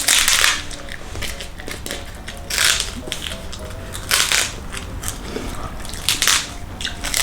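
Close-miked crunchy bites and chewing of a crunchy sweet snack, four loud crunches about a second and a half to two seconds apart, over faint background music.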